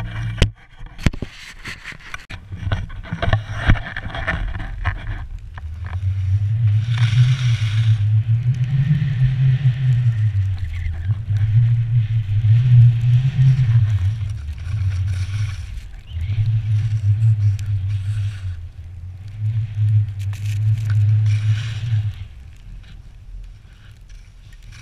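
Skiing fast through deep powder: wind buffets the camera's microphone in long low rumbling stretches, with the hiss of skis spraying snow through the turns. Several sharp knocks and scrapes come in the first few seconds.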